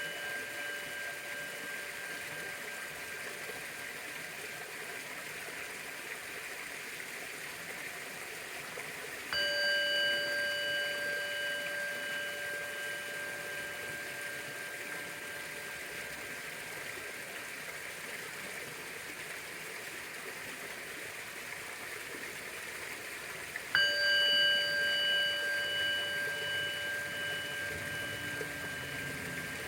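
Orin, a Japanese Buddhist bowl bell, struck twice about fourteen seconds apart, each strike ringing on in a long, slowly fading tone of several pitches. The ring of an earlier strike is still dying away at the start, over a steady background hiss.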